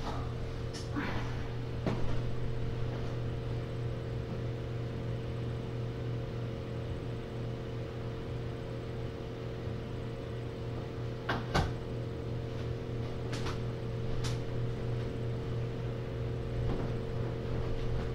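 Steady mechanical hum of room equipment, with a few brief faint clicks and knocks, the loudest about eleven seconds in.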